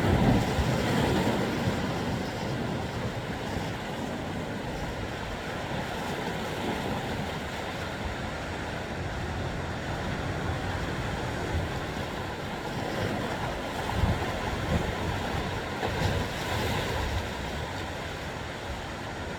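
Sea surf washing steadily, louder in the first couple of seconds, with wind buffeting the microphone in a few brief low thumps later on.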